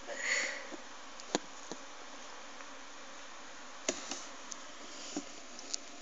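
Light scattered clicks and rustles of a cat shifting about inside a chest of drawers, over a steady faint hiss, with a brief high squeak just after the start.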